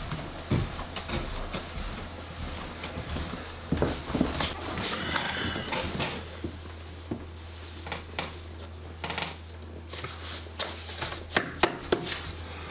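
Scattered knocks, rustles and creaks of a man walking up and settling into an office chair at a desk microphone, with several sharp clicks near the end. A steady low hum runs underneath.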